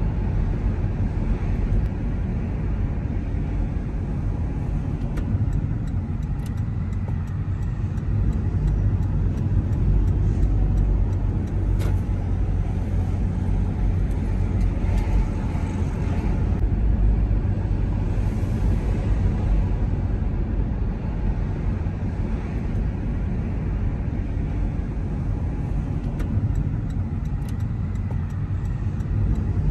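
Steady low rumble of a car's engine and tyres on the road while driving.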